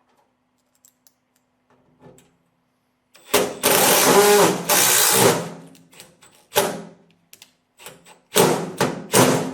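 Loud bursts of scraping and clattering from tools and metal parts being worked during a stove insert installation: one long rasping burst about three seconds in, then shorter ones near the end.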